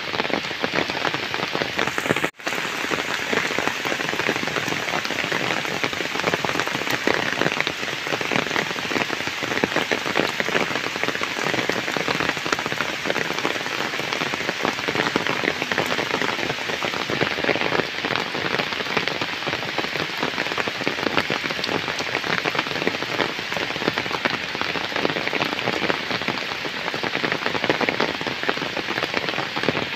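Heavy rain falling steadily on standing floodwater and a waterlogged dirt path, a dense, even patter of drops. A split-second gap cuts the sound about two seconds in.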